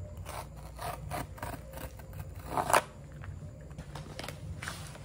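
Cardboard Kindle box being opened by hand: a run of short scrapes and rubs of cardboard, with a louder rip a little past halfway as the tear strip is pulled along the box.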